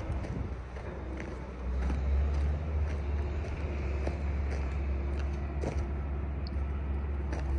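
Footsteps on dirt, about one a second, over a steady low rumble.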